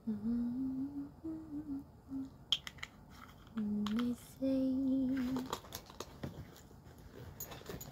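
A woman humming a tune with her lips closed, in held notes that step up and down, in two phrases with a pause between. Small clicks and rustles of handling come in the pause and near the end.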